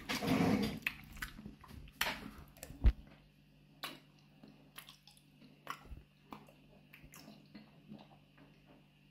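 Eating porridge with a metal spoon: the spoon scrapes the plate for about the first second, then chewing follows, with short wet clicks and smacks scattered throughout, one sharper knock about three seconds in.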